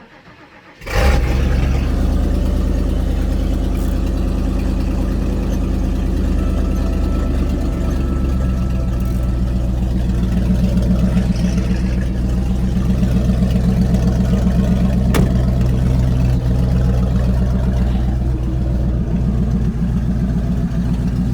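Ford 460 big-block V8 firing up about a second in, then idling steadily as it warms up from a cold start.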